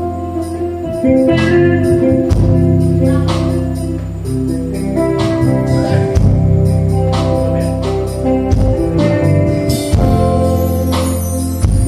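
Live band music: a sustained bass line and held chords over a steady beat.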